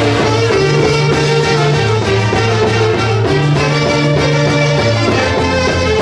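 Peruvian folkloric orchestra playing a Santiago festival tune: wind and brass instruments carry a sustained melody over a steady bass line that steps from note to note.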